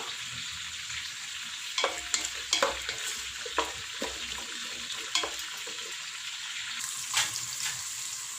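Sliced onions and green chillies sizzling in hot oil in a pan, with a spoon knocking and scraping against the pan every second or so as they are stirred.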